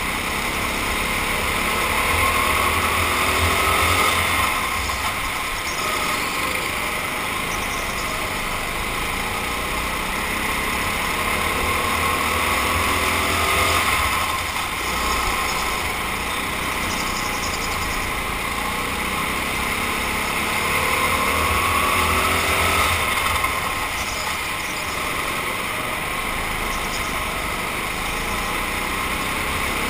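Indoor racing kart's motor heard from the driver's helmet, its pitch climbing and falling again about every nine seconds as it speeds up and slows on each part of the lap, over a steady hiss.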